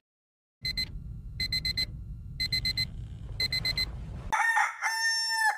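Digital alarm clock beeping in quick groups of four, about once a second, followed near the end by a rooster crowing: a morning wake-up effect.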